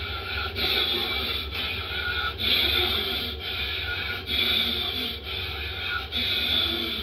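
A man breathing forcefully in and out in a steady rhythm, about one hissing breath a second, as a yoga breathing exercise.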